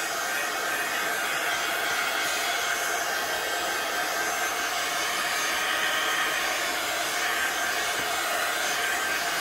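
Handheld craft heat tool blowing hot air steadily, drying a freshly coloured sheet of paper.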